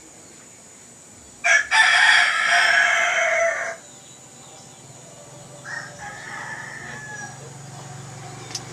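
A rooster crows once, loud, for about two seconds, starting about one and a half seconds in. A fainter, shorter call follows a few seconds later, and a low steady hum comes in from about halfway through.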